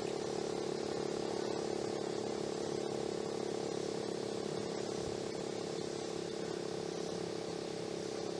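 Federal Signal STH-10 electromechanical outdoor warning siren winding down after its test, a steady low tone.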